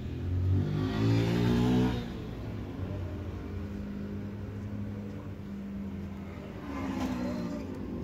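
A motor vehicle engine revving for about two seconds, then running at a steady pitch, with another rise in revs near the end.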